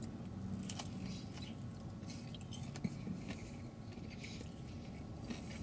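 Faint chewing of a bite of breaded chicken nugget, with small irregular crunches and mouth clicks.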